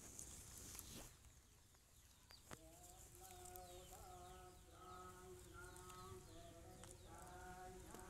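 Faint, repeated short animal cries, each a steady-pitched call about half a second long, coming about one to two a second from a couple of seconds in, after a faint click.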